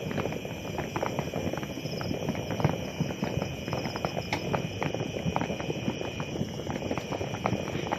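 Fireworks popping and crackling in a dense, irregular string of small bangs, with a few sharper cracks standing out.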